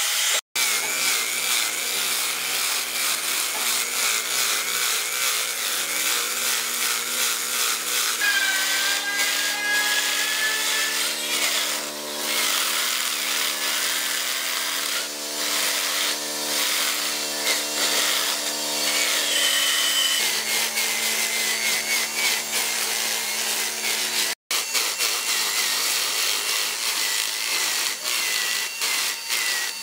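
Power tools sanding and brushing a wooden carving: an electric angle grinder with a sanding disc, then a cordless drill spinning a brush attachment against the wood, then the grinder again, each with a steady motor whine over the grinding noise. The tool sound changes abruptly about 8 seconds in and again after a brief cut-out near 24 seconds.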